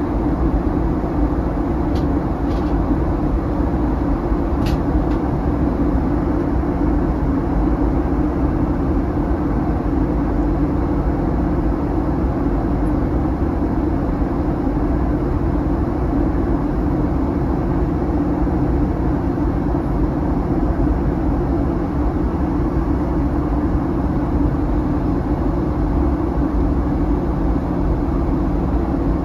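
Steady cabin noise inside a Boeing 737-900 in flight: the drone of its CFM56 turbofans and the rush of air past the fuselage, with a strong low hum. Two faint clicks come about two and five seconds in.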